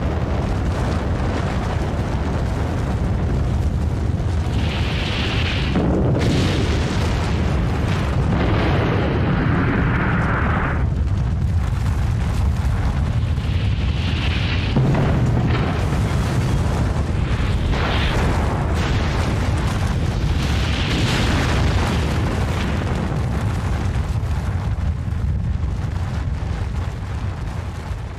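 Sound-effect rumble of an atomic bomb blast: a long, continuous deep rumble with repeated rushing swells on top, tapering off near the end.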